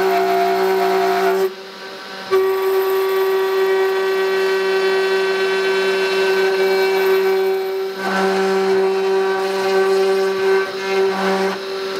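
The 500 W spindle motor of a TwoTrees TTC 450 CNC router running as a V-bit carves a deep cut into hardwood: a steady high whine with a rasp of cutting under it. It dips briefly about one and a half seconds in and starts to fall away near the end.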